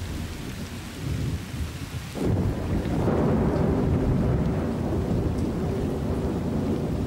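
Rain falling on dry ground during the first rains of the wet season. About two seconds in, the sound turns abruptly to a louder, deep, continuous rumble of thunder over heavy rain.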